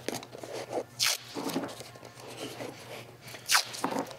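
Painter's tape being ripped off the roll twice, short rasping tears about a second in and again near the end, with softer handling of the tape on a small wooden box between.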